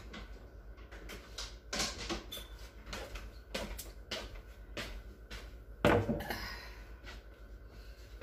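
Kitchen handling clatter: scattered clicks and knocks, then a louder clunk about six seconds in as a wire cooling rack is set down on a silicone baking mat on the stovetop.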